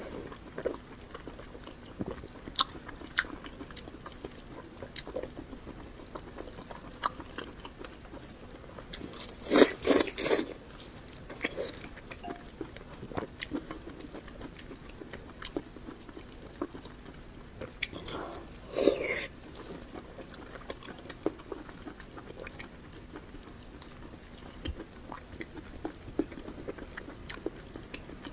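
Close-miked eating of braised pork large intestine: soft wet chewing and mouth clicks throughout. Two louder bursts of biting come about ten seconds in and again a little past halfway.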